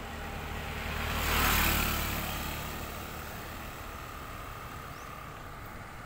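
A road vehicle passing by: its engine hum and tyre noise swell to a peak about a second and a half in, then fade away.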